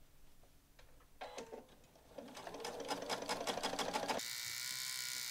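Electric sewing machine stitching a quilt strip through backing and batting. It starts about a second in with separate stitch clicks that come faster and faster, then runs as one steady whir for about a second before stopping.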